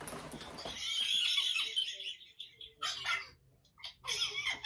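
Breathy, wheezing laughter in a few short bursts.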